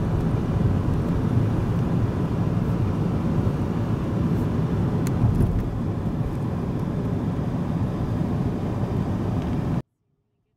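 Steady low rumble of road and engine noise heard inside a moving car. It cuts off suddenly near the end.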